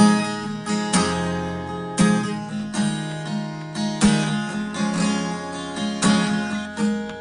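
Acoustic guitar strummed in a steady rhythm, chords ringing, with accented strums about once a second and lighter strums between.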